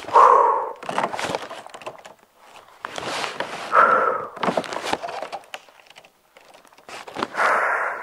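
A woman breathing out hard through her mouth as she works through squat reps, three forceful breaths about three and a half seconds apart, with light crackling and clicking between them.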